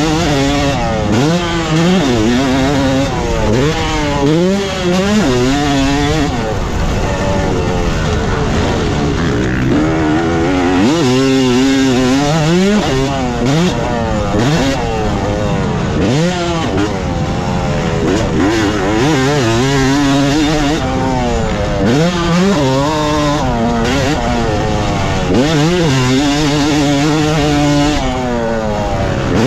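Yamaha YZ250 single-cylinder two-stroke motocross bike being ridden hard, its engine revs climbing and falling again and again as the throttle is worked and the gears change.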